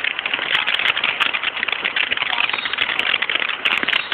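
Firework crackling: a dense, rapid run of small pops that swells up at the start and keeps going without a break.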